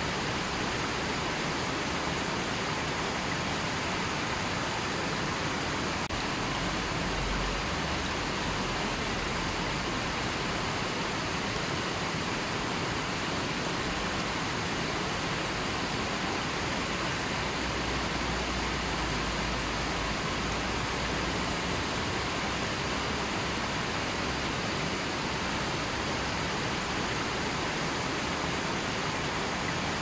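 River water rushing steadily over rocks and boulders, an even, unbroken rushing.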